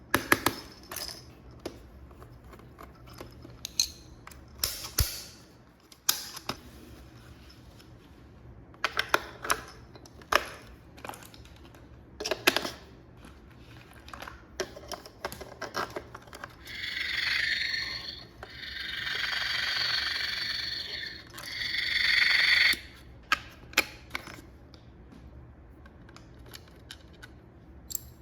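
Hands handling toy packaging and plastic parts: scattered sharp clicks and taps, then three longer rasping sounds of a second or two each, about two-thirds of the way in.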